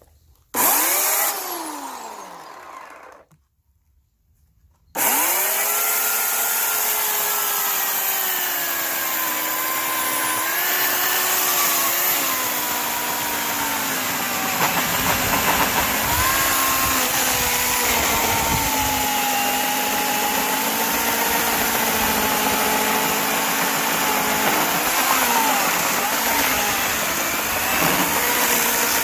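Oregon CS1500 corded electric chainsaw: a short trigger pull whose motor winds down with falling pitch, then after a brief pause a long steady run. The motor pitch dips and wavers as the chain loads up cutting into a log.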